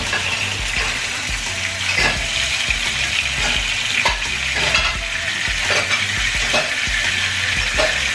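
Two seasoned snapper just laid into hot oil in a frying pan, frying with a steady sizzle and scattered crackles and pops.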